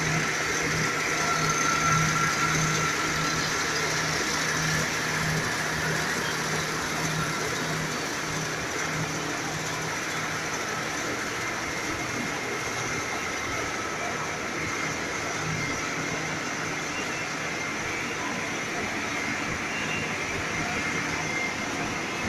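Machinery of a breakfast-cereal extrusion production line running steadily: electric motors, a rotating drum and a conveyor giving a continuous mechanical noise with a low hum and a few thin high whines.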